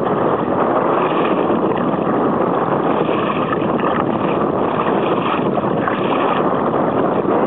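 Choppy water splashing against a moving kayak's hull, mixed with wind on the microphone: a steady noise with no motor.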